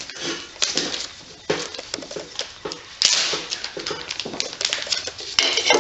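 Clicking and clattering of small metal engine parts and screws being handled during engine disassembly, with irregular knocks and a louder clatter about three seconds in and again near the end.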